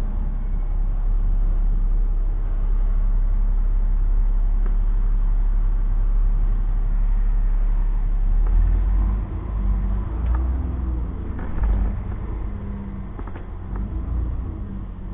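City bus running, a steady low rumble of engine and road noise. About nine seconds in it eases off, leaving a lower hum with a few sharp clicks and knocks.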